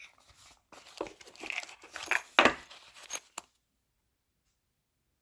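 Packaging being torn and crinkled by hand as an item is unwrapped: a run of rustles and tears with a few sharp clicks, stopping abruptly about three and a half seconds in.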